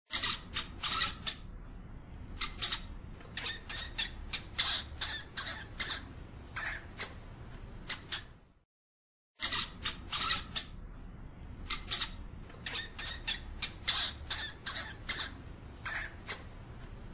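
European hamster giving short, sharp, high-pitched squeaks in quick irregular runs, with a pause of about a second midway before the calls start again.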